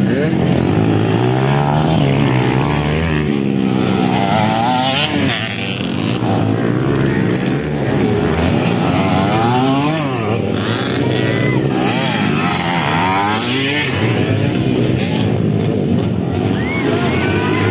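Several dirt bike engines revving on a motocross track, their pitch rising and falling over and over as the bikes accelerate and back off.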